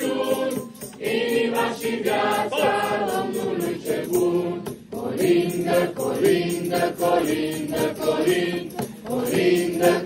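A group of young carollers singing a Romanian colind (Christmas carol) together, in held phrases with brief pauses between them.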